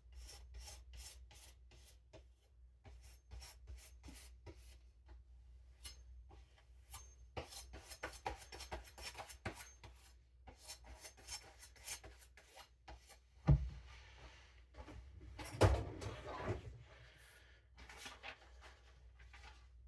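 Knife blade being stropped on denim: a run of short rubbing strokes, about two or three a second at first, with two louder knocks a little past the middle.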